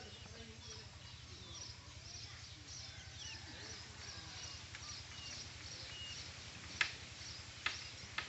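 Birds chirping continuously over a low steady hum, with three sharp clicks near the end, the first the loudest.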